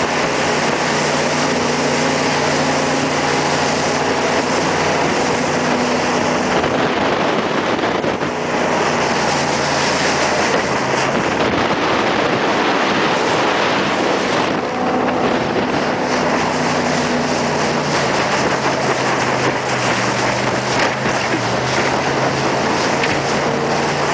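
Jet boat engine running at speed under a steady rush of water and wind on the microphone; the engine's hum shifts in pitch a few times.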